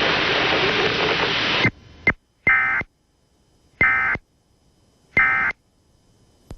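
Loud hissing broadcast static that cuts off abruptly, then the Emergency Alert System end-of-message signal: three short, identical bursts of screeching digital data tones about 1.3 s apart, marking the end of the test alert.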